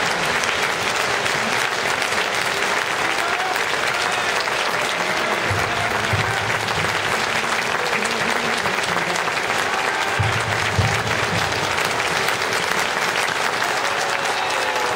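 Stadium crowd applauding steadily, with scattered voices calling out over the clapping.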